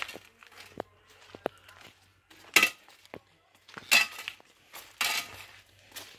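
Footsteps crunching on gravel and loose stones, one step about every second or so, each a short crunch.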